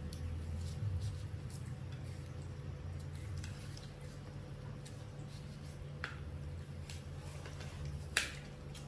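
Kitchen knife cutting through watermelon on a plastic tray: wet crunching and squishing with scattered clicks, the sharpest about eight seconds in. A low steady hum runs underneath.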